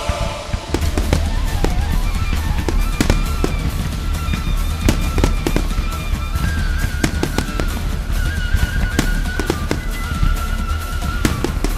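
Aerial firework shells and comets bursting in quick, irregular succession, many sharp bangs several a second, over music playing throughout.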